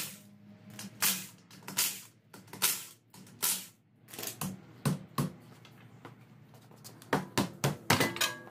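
A car's front wheel coming off: the wheel bolts being undone with a hand tool in four short rattling bursts, then a scatter of sharp metal clicks and knocks as the bolts and the wheel are handled near the end.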